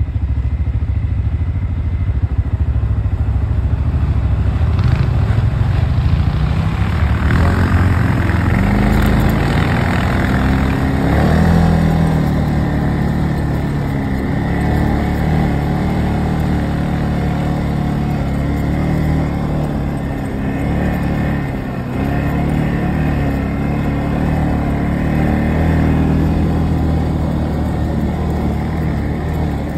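Quad bike (ATV) engines running while riding, the engine note climbing several seconds in and then rising and falling with the throttle.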